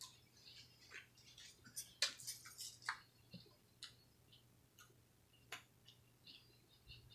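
Faint, scattered mouth clicks and smacks from eating, with a short flurry of crackly rustling about two seconds in, over a low steady hum.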